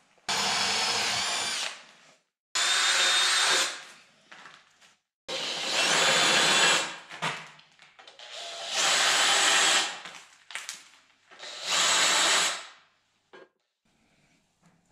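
Cordless drill boring bolt holes through a steel bracket: five separate bursts of drilling, each a second or two long, with short pauses between.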